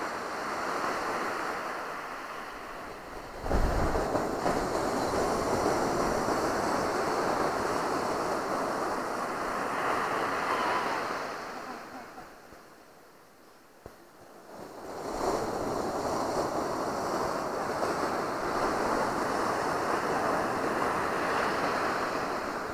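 Atlantic surf breaking and washing up a sandy beach, swelling and easing as the waves come in. It dies down for a couple of seconds about halfway through, then builds again.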